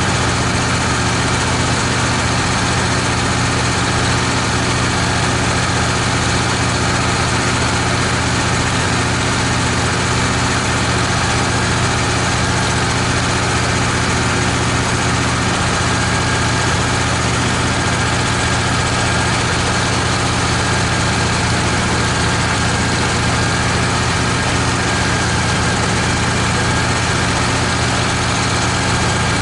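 Wood-Mizer LT15 portable sawmill's engine running at a steady speed throughout.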